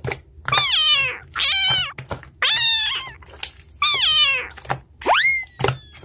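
Cats meowing: a string of about four drawn-out meows, each falling in pitch, then from about five seconds in shorter calls that rise sharply and then sag. Sharp clicks fall between the calls.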